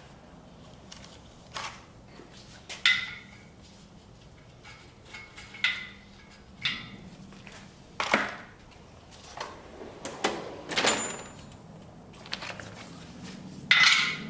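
Metal tools clanking against a cast engine block, about a dozen separate sharp knocks at irregular intervals, several of them ringing briefly.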